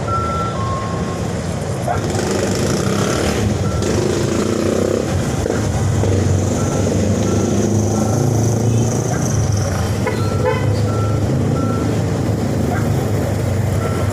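Steady low rumble of a running vehicle engine, with short high beeps that come back every second or so, in twos and threes.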